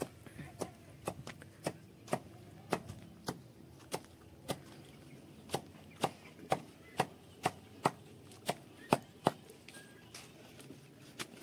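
Knife chopping leafy greens in steady strokes, about two a second, that stop about two seconds before the end.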